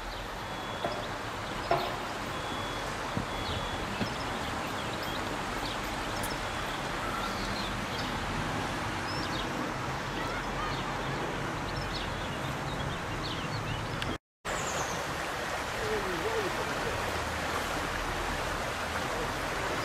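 Steady rushing of a river flowing over stones, with scattered high bird chirps over it. The sound cuts out abruptly for a split second about two-thirds of the way in.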